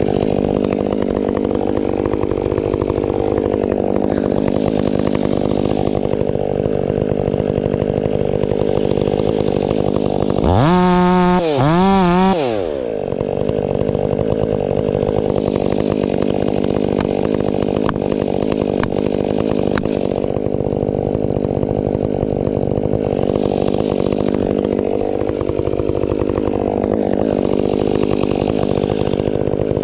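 Husqvarna 500i chainsaw running steadily, cutting ponderosa pine. About ten seconds in the engine revs up sharply and then drops back to its steady working note about two seconds later.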